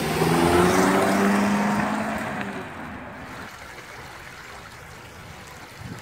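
A car engine runs as the car drives by, its steady note loudest in the first second or two and fading away by about three seconds in. Then a shallow rocky stream babbles steadily and more quietly.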